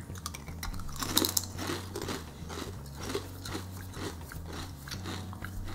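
Crisp potato chips being bitten and chewed by two people, a repeated run of short crunches.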